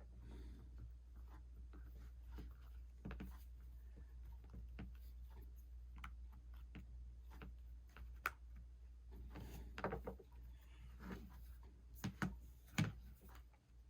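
Faint small clicks and scrapes of a pick prying an iPhone 6 screen up from its frame, with a few sharper clicks near the end.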